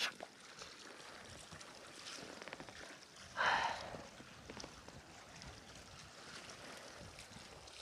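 Faint sea water washing against rocks at the shoreline, with a short hiss about three and a half seconds in.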